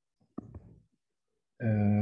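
A single sharp click followed by a short low murmur, then a man starts speaking near the end.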